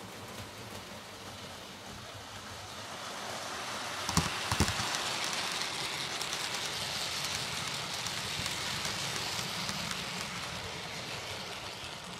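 A model train running past close by: the rolling noise of its wheels on the track builds over the first few seconds, with a few sharp clicks about four seconds in, stays up through the middle and eases off near the end.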